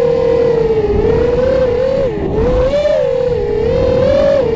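FPV racing quadcopter's brushless motors and propellers whining, the pitch rising and falling several times as the throttle changes through the turns, over a low rush of air.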